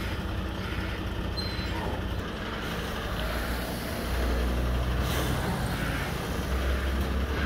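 Diesel engine of a Liebherr mobile crane truck running steadily, with a low hum that grows louder about four seconds in.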